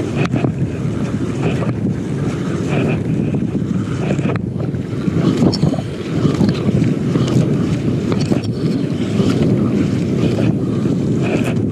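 Steady wind buffeting the microphone, with sea water washing against the hull of a small open boat.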